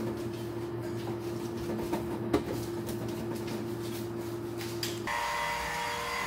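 A steady low hum with scattered clicks and one sharp knock about two seconds in. About five seconds in it cuts to a cordless stick vacuum cleaner running with an even whine.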